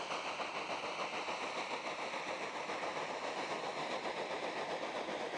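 A moving train on the rails, a continuous fast rattling clatter with no let-up.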